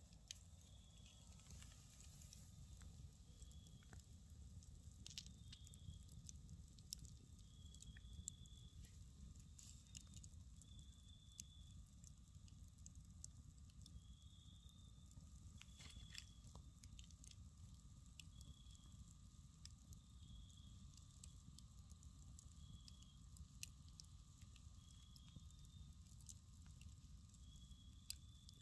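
Faint crackling and popping of a wood fire burning in a fire pit, scattered clicks with a sharper pop near the end. A short high chirp repeats every second or two.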